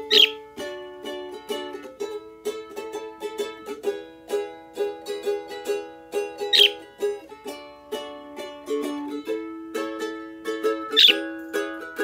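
A small stringed instrument, plucked and strummed in a steady bouncy rhythm. A pet bird chirps sharply over it three times: once at the start, once past the middle and once near the end.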